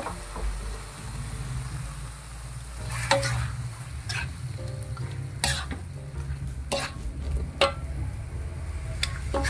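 Metal spatula scraping and knocking against a wok, about six strokes roughly a second apart, as a thick chili sambal with diced potato and chicken liver is stirred; faint sizzling of the frying food and a steady low rumble underneath.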